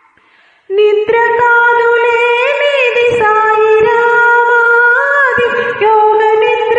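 Wordless melodic passage of a Telugu devotional song, breaking in abruptly after a short pause, with held notes joined by sliding ornaments and soft low taps under it.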